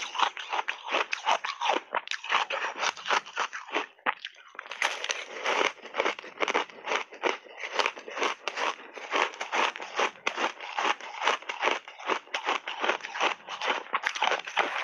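Close-miked chewing of crunchy crushed ice mixed with frozen fruit: a dense run of rapid crunches, with a brief pause about four seconds in.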